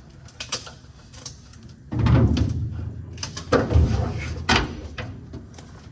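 Handling noise of knocks and clunks: scattered light clicks, then a run of heavy thuds and clatter about two seconds in, with more thumps a second and a half and two and a half seconds later.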